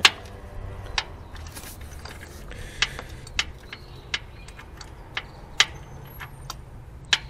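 Scattered sharp metallic clicks and taps at irregular intervals from a spark-plug socket and hand tools knocking about inside the engine bay while a new spark plug is worked by hand into the cylinder head of a Subaru EJ20 boxer engine.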